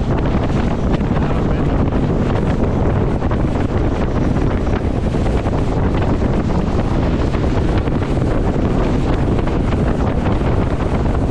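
Wind buffeting the microphone aboard a fast-running RIB chase boat, over the steady rush of water beneath the hull.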